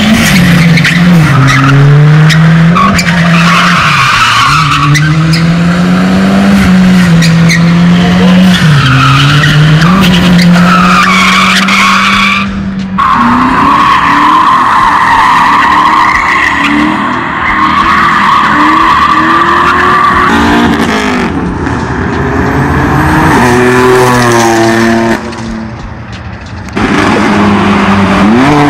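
Cars drifting with their tires spinning and squealing loudly, engines held at high revs with the pitch swinging up and down. Later an engine revs up in several quick rising sweeps.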